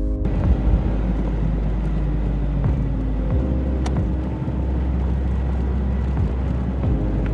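An SUV driving along a paved road, heard from inside: a steady low rumble of engine and tyres.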